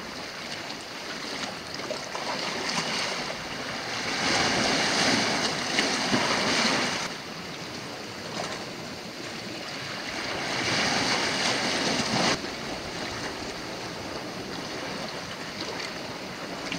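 Sea waves washing onto a rocky shore: a steady rush of surf with two louder waves surging in a few seconds apart.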